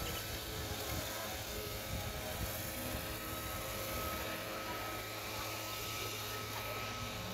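Wind buffeting a phone's microphone: a steady rushing noise with an uneven low rumble. A faint steady high whine runs underneath.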